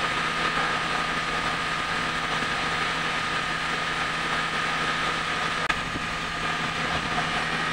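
Mitsubishi Grandis engine idling steadily, just started for the first time after its cracked flexplate and leaking torque converter were repaired, with a steady high whine over the idle. A single short click about three quarters of the way through.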